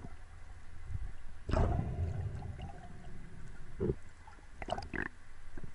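Underwater sound heard through a camera housing while a speared amberjack struggles on the spear shaft: a steady low rumble, a louder rushing burst about one and a half seconds in, and a few sharp knocks in the second half.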